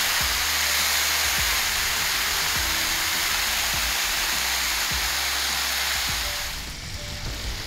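Bacon strips sizzling on a hot Blackstone flat-top griddle as more raw strips are laid down: a steady, loud frying hiss. The hiss drops off sharply near the end.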